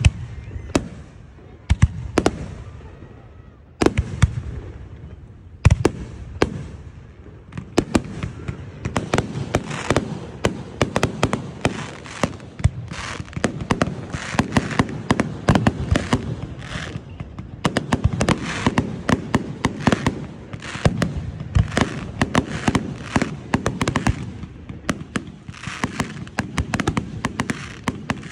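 Aerial firework shells bursting: a few single loud bangs about two seconds apart, then from about eight seconds in a dense barrage of overlapping bangs and crackling.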